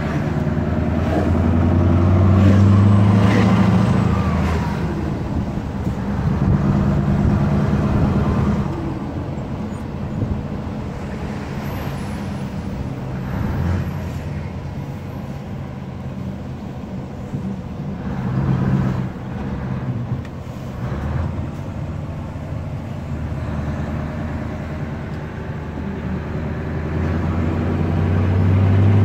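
Scania V8 truck engine running under way, heard from inside the cab: a deep steady hum that swells louder several times as the truck pulls, loudest about two seconds in, around seven seconds, near nineteen seconds and at the end, and eases off between.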